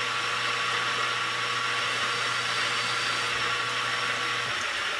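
Metal lathe running steadily: an even hiss over a low hum, and the hum drops out near the end while the hiss carries on.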